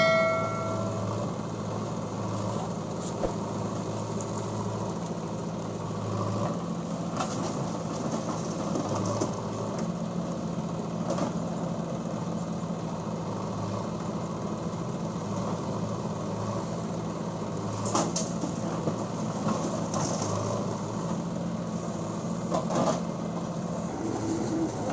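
Diesel engines of a JCB 3DX backhoe loader and tractors running steadily while the backhoe digs and loads earth, with a few sharp knocks in the second half as soil and stones are tipped into a tractor trolley.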